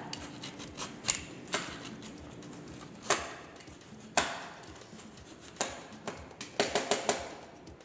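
Julienne peeler cutting thin strips off a raw carrot on a wooden cutting board: crisp scraping strokes at irregular intervals, about one a second, with a quick run of several strokes near the end.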